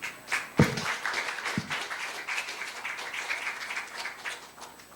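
Congregation applauding, the clapping tailing off just before five seconds. Two dull thumps come about half a second and a second and a half in.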